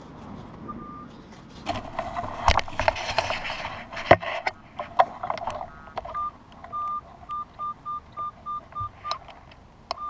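Scraping and rustling with a few sharp knocks as the hole is checked, then a Minelab CTX 3030 metal detector sounding a run of short beeps at one pitch, about three a second, as it picks up a target.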